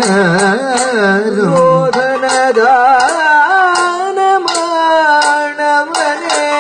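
Kathakali vocal music: a singer holds a melody that slides and bends in ornamented turns. Cymbal-like strikes keep time with it, about two a second.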